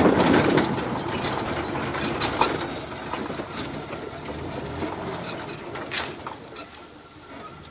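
Safari vehicle rattling and knocking as it drives along a rough dirt track, its engine and body noise fading as it slows. Scattered sharp knocks sound over it.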